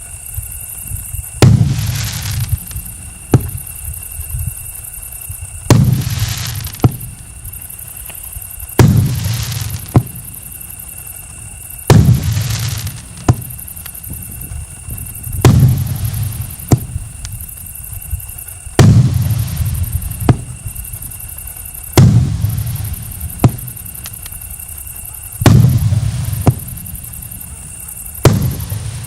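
A 24-shot, 2-inch (50 mm) firework cake battery firing its shots one by one, about one every three seconds. Each shot is a sharp bang followed by a low rumbling echo lasting about a second.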